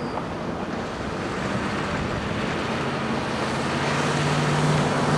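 Wind rushing over the microphone, growing steadily louder, over the steady low hum of a vehicle engine.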